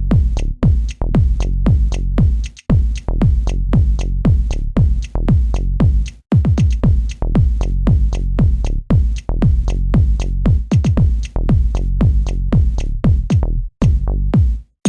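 Electronic background music with a fast, steady beat of deep kick drums, about three or four a second. It drops out briefly a few times.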